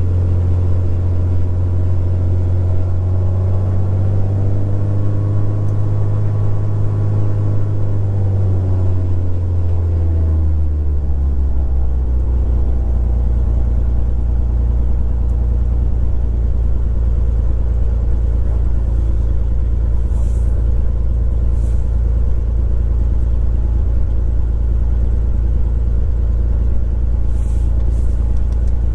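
Single-engine piston airplane engine running on the ground, its note rising slightly a few seconds in and dropping about ten seconds in, then holding steady at a lower speed.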